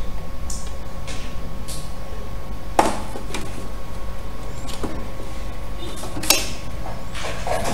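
Electric sewing machine running steadily, stitching through knit wool fabric with a fast, even rhythm. A few sharp clicks sound about three seconds in and again a little after six seconds.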